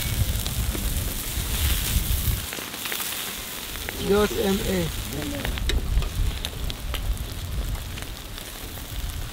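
Salt-coated mullet and shrimp sizzling and crackling on a charcoal grill, with sharp clicks of metal tongs against the wire grate. A low rumble stops about two and a half seconds in, and a voice speaks briefly about four seconds in.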